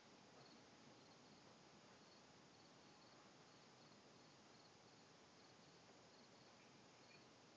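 Near silence: a faint steady hiss with the faint, regularly repeated high chirps of an insect, cricket-like.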